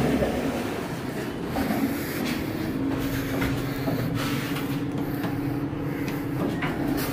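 Toshiba passenger lift's stainless-steel doors sliding open, then a steady hum from the lift with a few light clicks, the last as the door-close button is pressed near the end.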